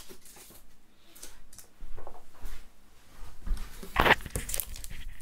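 Handling noises: scattered light knocks and rustles of objects being moved, with a louder clatter about four seconds in.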